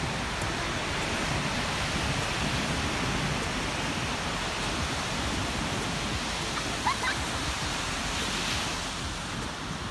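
Ocean surf breaking and washing up the sand in a steady rush. A brief high chirp comes twice, close together, about seven seconds in.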